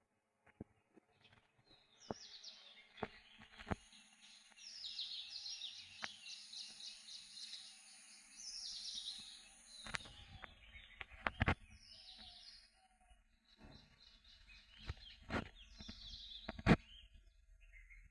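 Songbirds singing in repeated trilled phrases with quick falling notes, with a thin steady high tone behind them for part of the time. Several sharp clicks or knocks stand out, the loudest near the end, over a low rumble in the second half.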